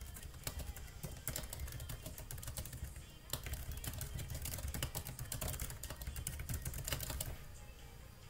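Typing on a computer keyboard: a quick, irregular run of keystroke clicks that stops shortly before the end, over a low hum.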